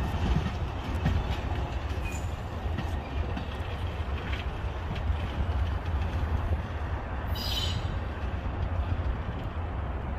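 Amtrak Superliner bilevel passenger cars rolling past and away as the train departs, a steady low rumble of wheels on the rails with a brief high-pitched wheel squeal about seven seconds in.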